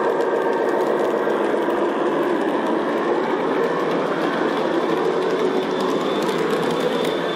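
G-scale model Santa Fe freight train, number 868, running steadily along its track: the continuous rolling noise of the locomotive and freight cars.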